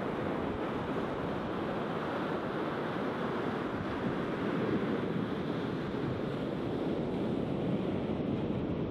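Sea surf breaking and washing up a sandy beach: a steady rush of waves, swelling slightly midway.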